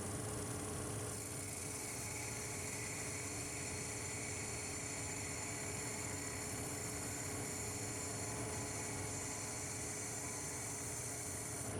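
A machine running steadily, with a constant hum and a high, even whine over a noisy rush. It starts abruptly and does not change.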